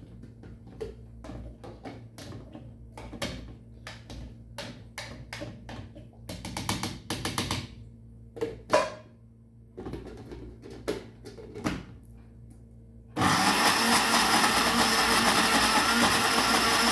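A run of light clicks and knocks, then, about three-quarters of the way in, a countertop electric blender switched on and running steadily and loudly as it grinds garlic, chilies and oil into a paste.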